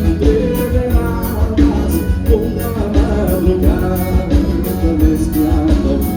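Live gaúcho dance band playing, a button accordion (gaita) carrying the melody over bass and drums with a steady dance beat.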